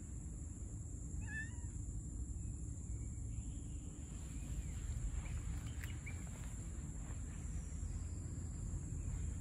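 Cat giving a short meow about a second in, followed by a few fainter calls, over a steady low outdoor rumble.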